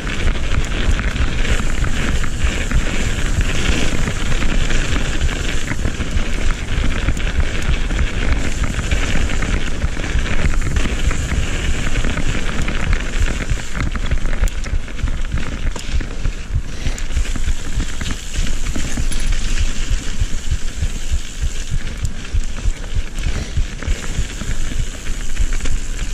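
Mountain bike ridden fast down a dirt singletrack. Wind buffets the mounted camera's microphone in a constant low rumble, over tyres crackling across dirt and roots and many small rattles from the bike.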